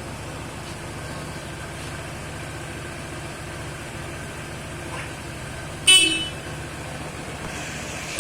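Vehicle engine idling with a steady low hum, and one short, loud toot of the horn about six seconds in.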